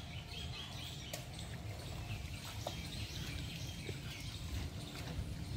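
Faint bird chirps over a low, steady rumble of outdoor noise.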